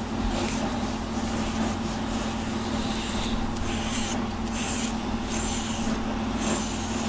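A brush drawn through a cat's fur in repeated short swishing strokes, about one or two a second, over a steady low hum.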